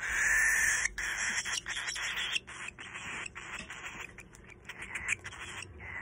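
Baby cockatiel chick making raspy, hissing begging calls as it is hand-fed: one long call in the first second, then a quick run of short rasps. These are the food-begging calls of a hungry chick.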